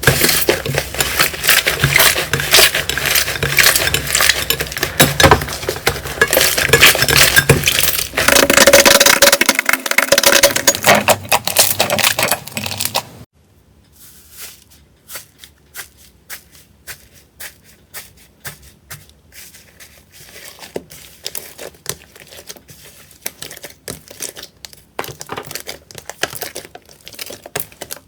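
Slime being pressed and squished by hand: dense, loud crackling and popping. About halfway through it drops suddenly to quieter, scattered clicks and pops.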